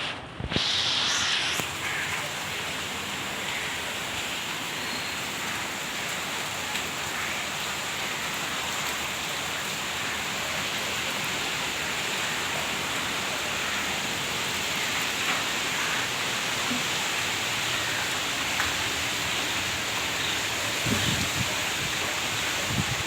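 Steady rain falling, an even hiss that holds for the whole stretch, with a brief louder rush in the first second or so and a few low thuds near the end.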